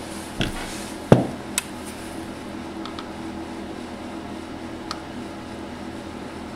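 A few knocks and light clicks from hand tools being handled while desoldering transistor legs, the loudest knock about a second in, over a steady background hum.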